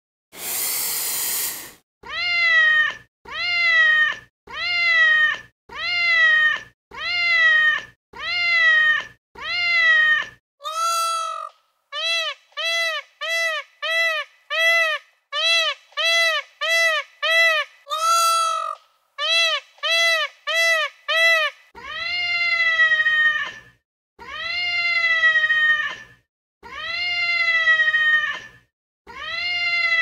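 An animal crying over and over in clear, high, pitched calls: about eight even cries of under a second, then a quick run of many shorter cries, then four longer drawn-out ones. A short hiss is heard right at the start.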